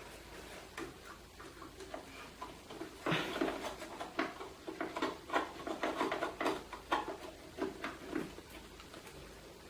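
A RAM module being lined up and pushed into a memory slot of a PowerMac G5: a run of small plastic-and-metal clicks and scrapes, sparse at first and thickest from about three seconds in.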